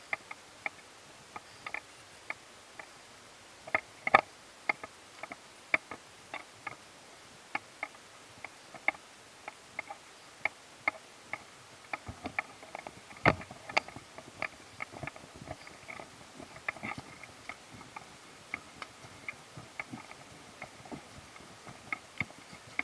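Footsteps on a paved road: sharp taps at a walking pace, about two a second, over a low background hiss.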